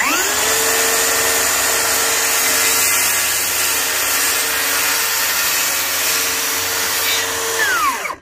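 DeWalt FlexVolt 60V brushless cordless circular saw spinning up with a quick rising whine, running steadily as the blade cuts through a wooden board, then winding down fast near the end once the trigger is released.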